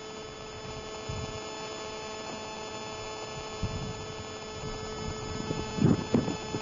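Steady electrical hum of a few fixed tones over a low background hiss, with bursts of low rumbling noise near the end.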